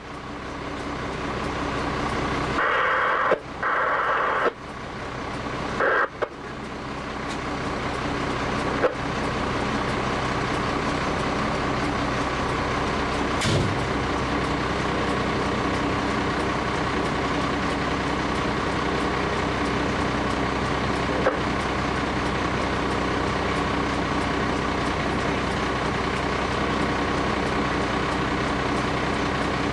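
Fire apparatus engine idling steadily, heard from inside the cab, with a few short crackles and clicks in the first several seconds and a single sharp click about thirteen seconds in.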